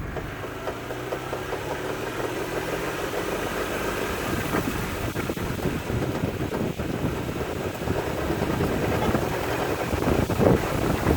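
Jeep Wrangler JK driving slowly in a low gear, engine running and getting gradually louder, with a rapid knocking from the drivetrain that the owner suspects comes from the transmission case or the differentials.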